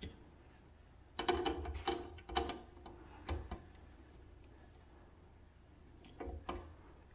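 Clicks and taps of a screwdriver and thin bell wires being worked into the terminal block on the back of a garage door opener's motor unit. A quick cluster of clicks comes about a second in, two more near the middle and two near the end.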